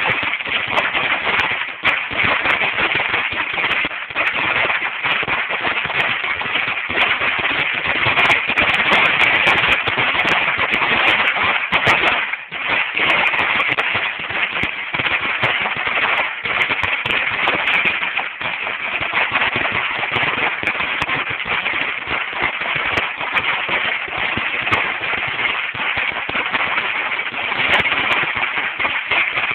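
A Dominator 16,000 firecracker strip going off as a continuous, rapid string of sharp bangs, briefly thinning about twelve seconds in before carrying on.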